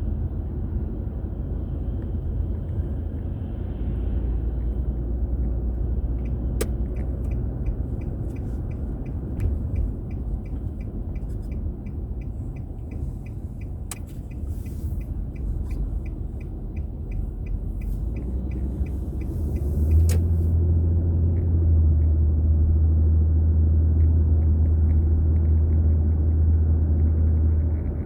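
Car rumbling along, heard from inside the cabin, with a regular ticking of about two ticks a second from about six seconds in until about twenty seconds in, typical of a turn signal. About twenty seconds in, the low rumble grows louder and stays so.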